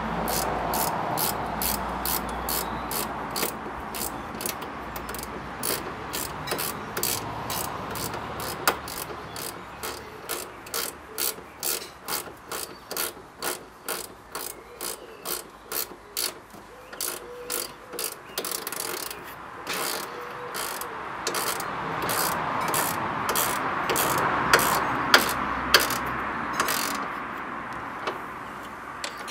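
Hand ratchet clicking in a long steady run, roughly two clicks a second, as it tightens a Jubilee clip (worm-drive hose clamp) on the snorkel's air-intake hose, with some handling noise between strokes.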